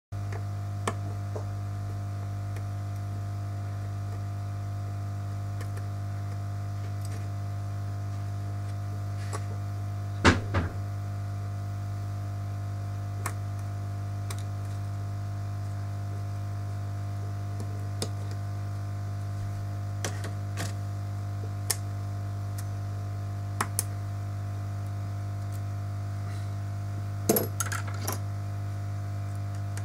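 Steady electrical hum with scattered light clicks and taps of small metal tools on a phone, loudest about ten seconds in and in a short cluster near the end.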